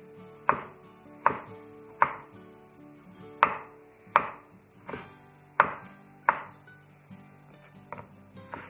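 Kitchen knife chopping peeled tomatoes on a wooden cutting board: a sharp knock of the blade on the board about every three-quarters of a second, the strokes softer and closer together near the end.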